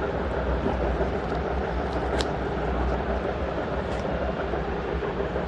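Steady low rumble of background traffic noise, with a couple of faint clicks from a case being opened, about two seconds in and again near four seconds.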